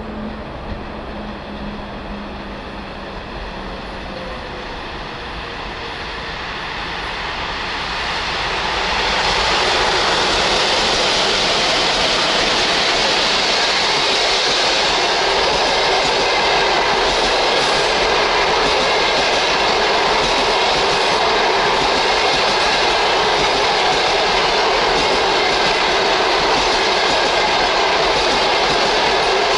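A passenger train hauled by a ChS7 electric locomotive approaches, growing louder over the first nine seconds or so, then its long rake of passenger coaches runs past in a steady, loud rolling rumble of wheels on rails.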